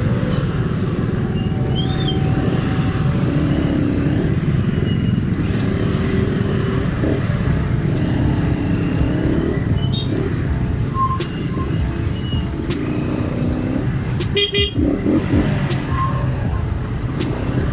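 Engines of cars, trucks and motorcycles running in slow, congested road traffic, heard from a motorcycle in the middle of it. A vehicle horn sounds briefly about three quarters of the way through.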